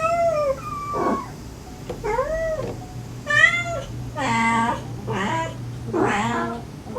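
A mother cat calling softly and her kittens mewing back, a string of short meows that rise and fall in pitch, about one a second. From about four seconds in the calls grow longer and harsher.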